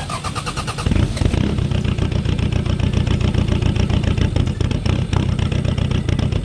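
Toyota Hilux Surf turbo-diesel engine catching about a second in and then running steadily with a fast clatter, with its injectors cracked open to bleed air after running out of fuel.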